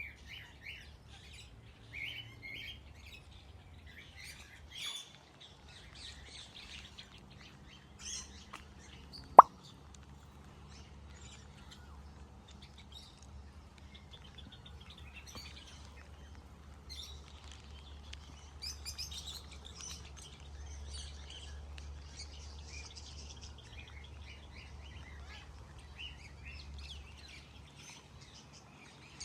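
Many aviary birds chirping and calling in short, overlapping high notes, over a steady low rumble. A single sharp click sounds about nine seconds in.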